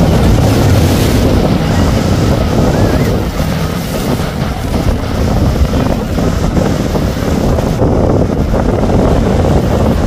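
Speedboats running fast through choppy water, among them a center console on triple Yamaha 300 outboards: a steady engine drone under rushing water and spray, with wind buffeting the microphone.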